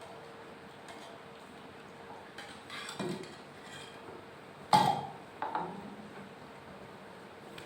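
Kitchenware being handled as the boiled herbal drink is strained from a pot into a glass: a short scraping rustle about three seconds in, then a sharp ringing clink near five seconds, followed by a lighter clink.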